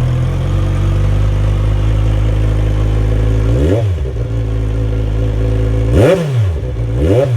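2010 Kawasaki Z1000's inline-four engine idling steadily through aftermarket Vance & Hines CS One exhausts, freshly started. A quick throttle blip comes about halfway through and two more near the end.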